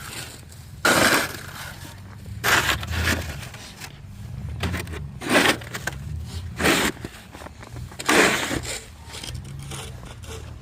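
Footsteps crunching through packed snow, one short crunch every second or two, over a low steady rumble.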